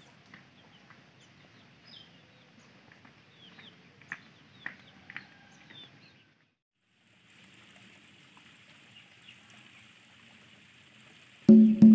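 Faint outdoor ambience with scattered bird chirps and a few short, sharp calls in the first half. After a brief drop-out, a steady high hiss takes over. Music with a loud wood-block beat starts near the end.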